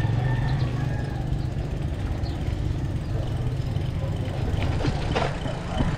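Mountain bike riding over a rough dirt road: a steady low rumble of wind and tyre noise, with a cluster of knocks and rattles over bumps about five seconds in.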